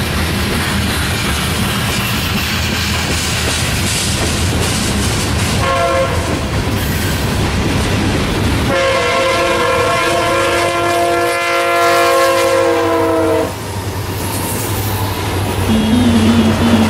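Freight cars rolling past with a steady rumble and clickety-clack of wheels over the rails, while an approaching Norfolk Southern diesel locomotive sounds its multi-chime air horn: a short blast about six seconds in, then a long blast of about four seconds starting around nine seconds in. Music comes in near the end.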